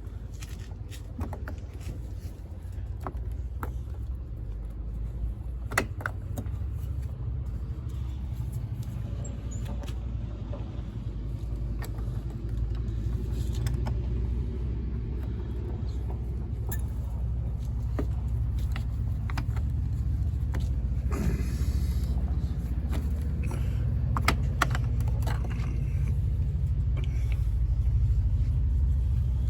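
Scattered clicks and light metallic clinks of parts and tools being handled, over a steady low rumble that slowly grows louder.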